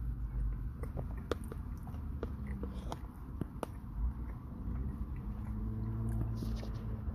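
A person chewing a forkful of chicken and cheese enchilada with salsa, with many small sharp clicks and smacks, over a low steady hum.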